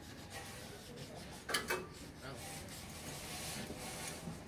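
Handling noise from work on a hydraulic boom cylinder during reassembly, with a single sharp knock about a second and a half in.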